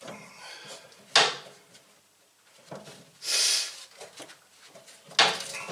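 Hands working on car parts: a sharp knock about a second in, a half-second scrape or rustle in the middle, and another sharp knock near the end, with small clicks between.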